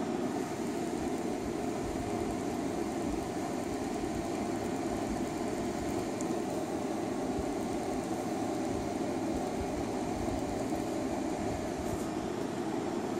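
A steady, even droning noise with no changes or distinct events, like a fan or machine running in the background.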